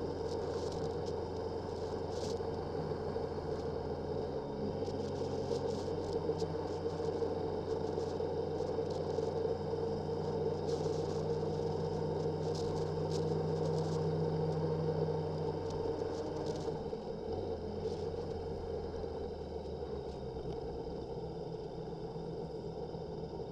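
Motorcycle engine running steadily while riding, with wind and road noise. Its note shifts slightly about four and a half seconds in and again around seventeen seconds.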